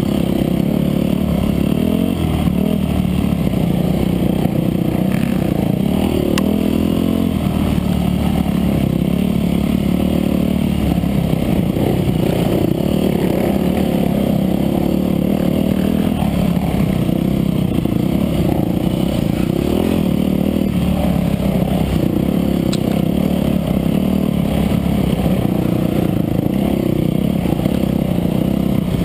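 Dirt bike engine running at full effort, its pitch rising and falling over and over as the throttle is worked through tight trail sections, with the rattle of the bike over rough ground.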